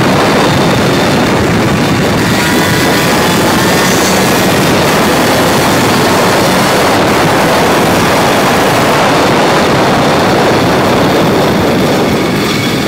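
Racing go-kart engine running hard, heard loud and close from a camera mounted on the kart, its pitch rising and falling as the kart goes through the corners.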